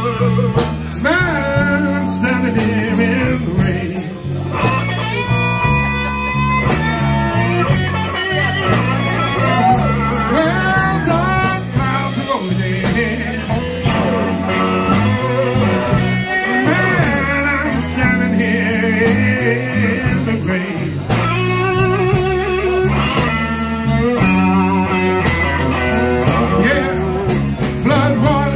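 Live blues band playing a slow electric blues: electric guitar lead with bent notes over bass and drums, and a man singing into a microphone.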